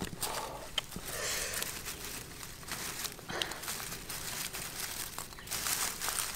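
Dry grass rustling and crackling as hands rummage through a quail's grass nest to gather the eggs, irregular, with a few small sharp clicks.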